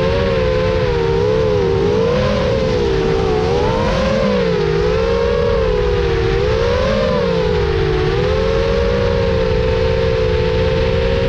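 FPV quadcopter's brushless motors whining loudly: a cluster of close tones that swing up and down in pitch together with the throttle, settling to a steadier pitch for the last few seconds.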